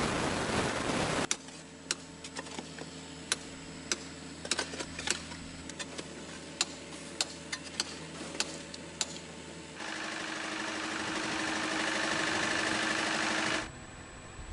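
Sharp, irregular hammer taps on concrete, about twenty over several seconds, over a faint steady hum. Before them a loud rushing noise stops abruptly at a cut, and near the end a louder steady rushing noise with a low hum runs for about four seconds and then stops suddenly.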